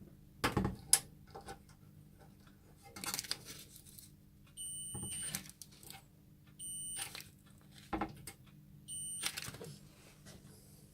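Three short electronic beeps, each about two-thirds of a second long and a second or two apart, mixed with sharp clicks and knocks of handling, the loudest near the start.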